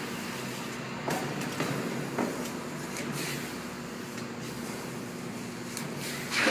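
A plastic squeegee is swiped over a vinyl decal on a steel roll-off container panel, making a handful of short scraping swishes. The loudest comes right at the end. A steady low hum runs under it.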